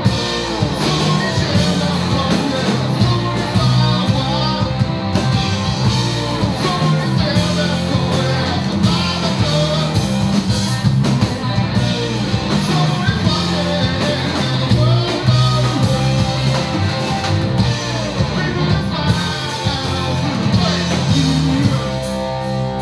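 Live rock band playing loud and steady: drums, bass guitar and a double-neck electric guitar, amplified.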